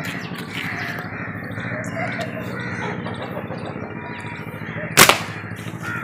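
Birds chirping and crows cawing over a steady low hum, with one sharp knock about five seconds in.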